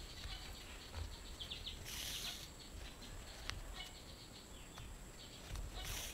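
Hand sewing: small scratchy rustles of cotton fabric being handled and stitched, with two short swishes of embroidery thread drawn through the fabric, about two seconds in and again at the end.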